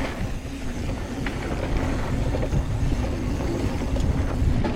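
Ride-along sound of a hardtail mountain bike descending a dirt trail: steady wind buffeting on the microphone over the rumble of tyres on the ground, with a few faint clicks and rattles from the bike.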